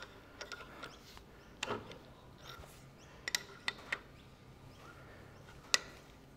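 A few scattered light metallic clicks and clinks from an adjustable spanner working the adjusting nut of an adjustable hand reamer, the sharpest one near the end.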